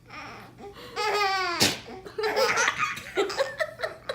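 A baby laughing in bursts. A high, drawn-out note falls in pitch and ends in a sudden sharp burst about a second and a half in.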